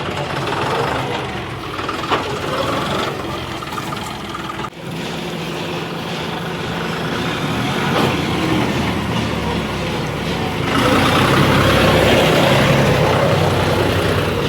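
Tractor diesel engine running steadily, with a brief break about four and a half seconds in and growing louder from about eleven seconds in.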